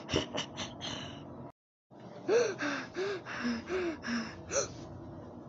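A few sharp clicks, then a child making a quick run of about seven short, breathy gasps or pants, each rising and falling in pitch, as if voicing a toy scurrying away.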